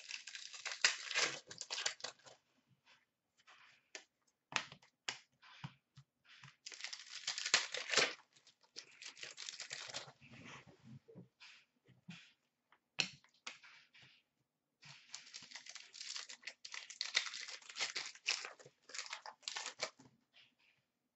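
Trading card packs being torn open and the cards handled, with crinkling wrappers and cards sliding and flicking against each other. It comes in a few spells of dense rustling, with scattered sharp clicks between.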